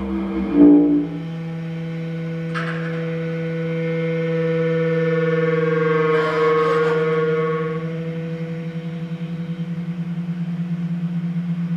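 Bass clarinet with electronic fixed-media sounds: a long, sustained low tone with a steadier higher tone above it, after a brief louder note near the start. It swells toward the middle, and over the last third the low tone pulses quickly.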